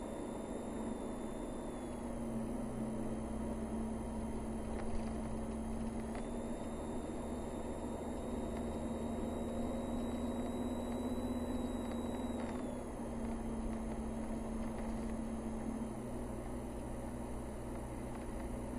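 Car engine and tyre noise heard from inside the cabin while driving steadily along a paved road: a low, even hum with rumble beneath. A faint high whine steps down and up in pitch a few times, and there is one small knock about five seconds in.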